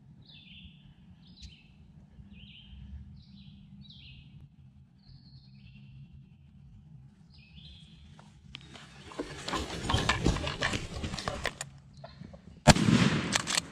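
Small songbirds chirping in short repeated calls, then about three seconds of loud rustling of grass and brush close to the microphone. Near the end a sudden loud bang cuts in, a shotgun shot fired at a turkey.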